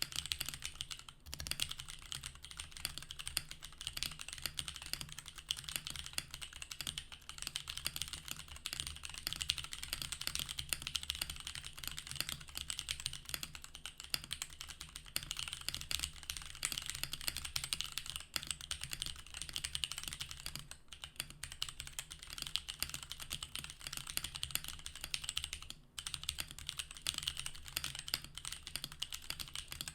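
Continuous fast typing on an MG Portico mechanical keyboard with SP-Star Magic Girl tactile switches, a dense run of keystroke clicks with a few brief pauses.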